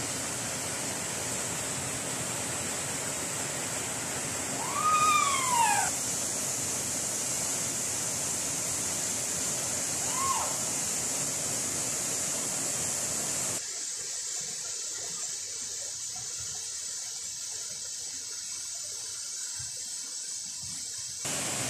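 Waterfall rushing steadily, a constant hiss of falling water. Two short calls rise and fall in pitch, about five and ten seconds in, and about two-thirds of the way through the rush suddenly turns quieter and duller.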